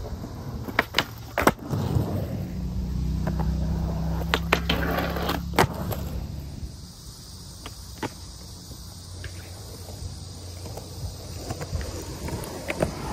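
Skateboard on a concrete park: a few sharp clacks of the board, then a low rumble of urethane wheels rolling past the flat bar for a few seconds, broken by loud clacks of the deck and trucks hitting the ground. Quieter rolling and light knocks follow.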